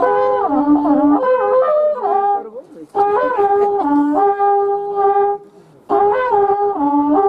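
Waqrapuku, the Andean spiralled cattle-horn trumpet, playing a loud call of long held notes in three phrases with short breaks between them, each phrase stepping between notes and dipping briefly to a lower one.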